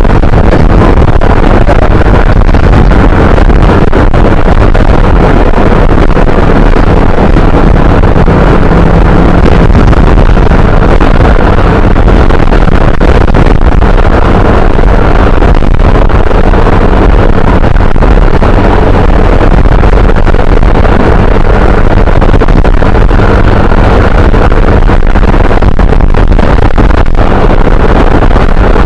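Motor scooter ridden at steady speed: a loud, unbroken rush of wind on the microphone over the engine's steady hum.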